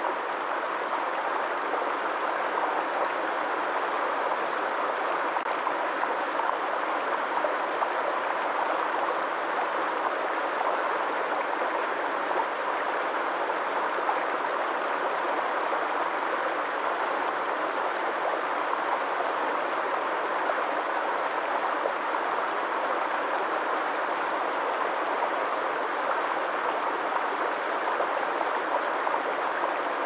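Small mountain stream running over a low rocky step: a steady, unbroken rush and splash of water.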